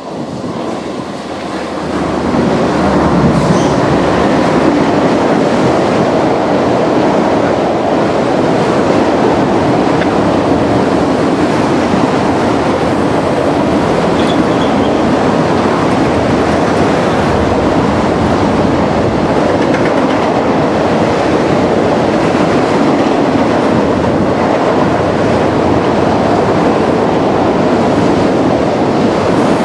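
CN freight train passing close by: the lead diesel locomotives come in and the level rises over the first couple of seconds, then a long string of autorack cars rolls past with steady wheel-on-rail noise.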